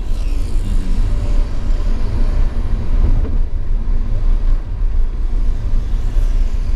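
Car driving at a steady speed: a continuous low rumble of engine and road noise.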